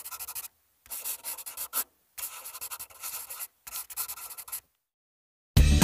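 Scratchy pen-on-paper writing sound effect in four bursts of about a second each, stopping shortly before music starts loudly right at the end.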